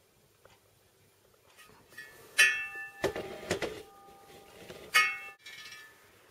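A laced motorcycle wheel with stainless spokes, struck twice with a sharp metallic clang about two and a half seconds apart. Each strike leaves a ringing tone. Some clattering handling noise follows the first, and the ring is cut short soon after the second.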